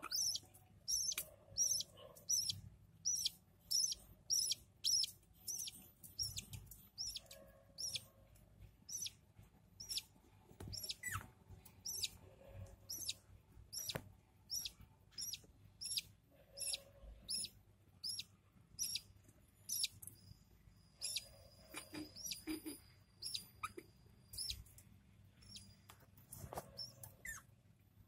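Budgerigar chick begging to be fed: a long run of short, high chirps about two a second, thinning out and growing irregular after about twenty seconds.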